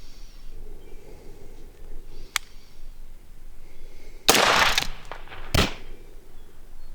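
Two loud rifle shots from a .223 AR-15-type rifle, a little over a second apart; the first rings on for about half a second. A faint sharp click comes a couple of seconds before the first shot.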